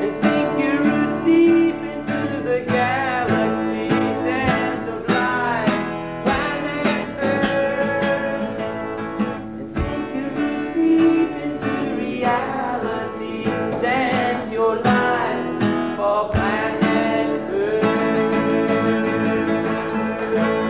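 Live solo folk song: acoustic guitar strummed under a wavering sung melody line.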